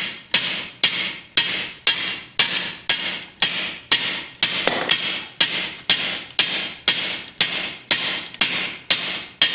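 Hand hammer striking a guillotine pipeswage on the anvil in an even rhythm of about two blows a second, each blow ringing briefly, as a red-hot 1-inch steel pipe is turned between blows and necked down.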